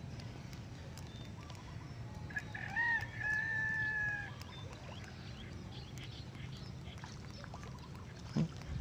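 A rooster crowing once, a single call of about two seconds in the middle, over a steady low background rumble. A brief low thump near the end.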